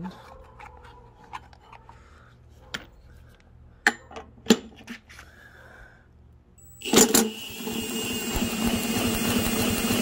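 A few clicks and knocks as the Kohler XT675 engine's flywheel is turned by hand to bring it off compression. About seven seconds in, an impact driver on the flywheel nut starts suddenly and runs steadily, spinning the engine over for a spark test.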